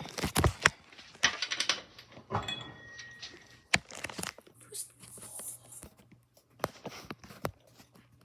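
Handling noise: irregular knocks and clicks with rustling in between, the loudest knocks near the start.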